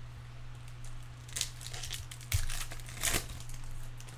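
Foil trading-card pack wrapper crinkling and tearing as it is handled, in a few short bursts.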